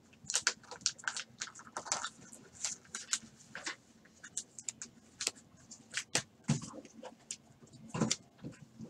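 Trading cards handled by hand and flipped through a stack: an irregular run of light clicks and slides of card against card, with a couple of louder knocks in the later part.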